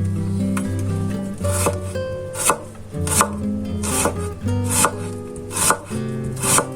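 Knife chopping on a cutting board, single sharp strokes about one a second, over background music with held chords and a bass line.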